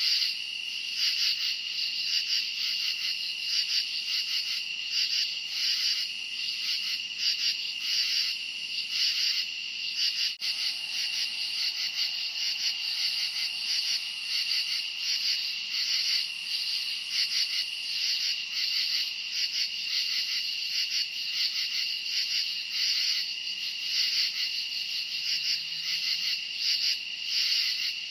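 Night chorus of crickets chirping: a dense, high, pulsing trill, about two pulses a second, holding steady throughout.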